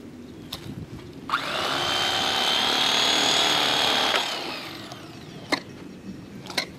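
A small electric motor, likely an electric fillet knife, spins up with a rising whine, runs steadily for about three seconds and winds down. A few sharp knocks of knife on the wooden table come before and after it.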